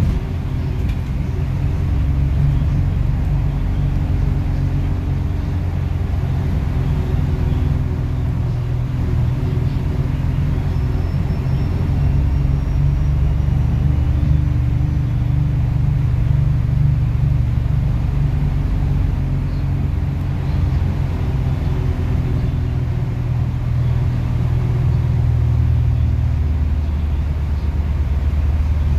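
Cabin sound of a LOTES city bus under way: a steady low engine drone with road rumble. About three-quarters of the way through, the upper part of the drone drops away and a lower note carries on.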